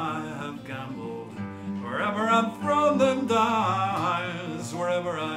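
A man singing a blues song, accompanying himself on an acoustic guitar.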